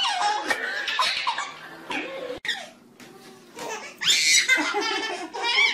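A baby laughing in repeated pitched bursts that cut off abruptly about two and a half seconds in. About a second and a half later a louder bout of high-pitched laughter starts and runs to near the end.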